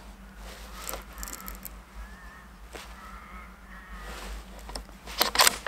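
Crows cawing several times, then a loud, sharp crack with a short rattle of echo near the end: the Tikka T3x CTR rifle in .223 being fired.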